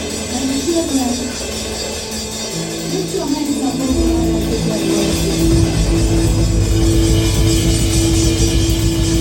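Live church band music with drum kit. About four seconds in a heavy bass comes in and the music grows louder under a long held note.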